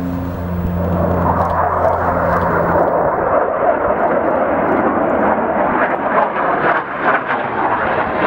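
Jet noise of a Saab JAS 39 Gripen's single Volvo RM12 turbofan as the fighter flies past overhead: a rushing roar that swells about a second in and turns crackly in the last couple of seconds. A steady drone fades out over the first three seconds.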